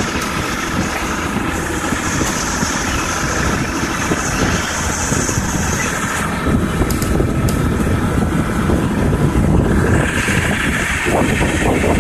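Motorboat engine running steadily under way, mixed with the rush of water and wind.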